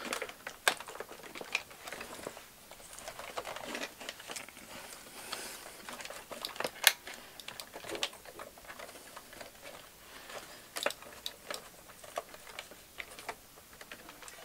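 Fingers working at the plastic underside of a robot vacuum, seating a battery pack in its compartment: scattered small plastic clicks and taps, with one sharper click about seven seconds in.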